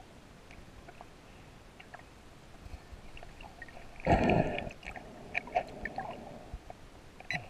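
Underwater: a diver's scuba regulator lets out a short burst of exhaled bubbles about halfway through, the loudest sound. A few short tone blips from the underwater metal detector follow as its coil sweeps the seabed.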